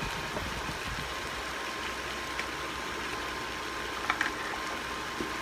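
Chicken and onions frying in a large stainless-steel pan: a steady sizzling hiss over a low hum, with a couple of short knocks about four seconds in.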